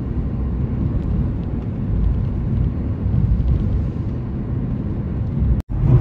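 Steady road and engine rumble heard inside the cabin of a moving Volkswagen Saveiro pickup. It drops out abruptly for an instant near the end.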